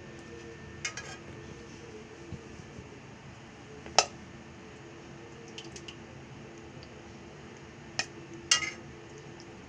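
Metal tongs clinking against a plate as jalebis are set down: a few sharp clicks, the loudest about four seconds in and two more close together near the end, over a faint steady low hum.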